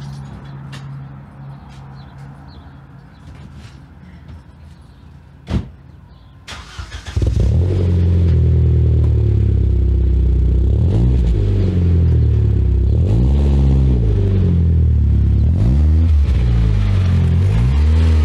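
A single knock about five and a half seconds in, then a car engine starts about seven seconds in. It runs loudly through its exhaust, its pitch swelling and falling back several times.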